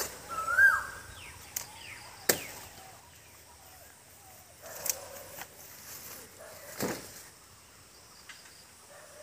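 A handful of sharp, irregularly spaced strikes of a long-handled hooked blade hacking into a banana plant's soft stem. A short whistled call rises and falls near the start.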